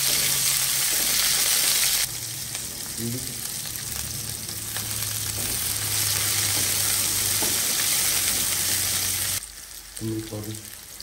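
Sliced red onions sizzling in hot butter with fenugreek seeds in a kadai, stirred with a spoon. The sizzle drops away sharply near the end.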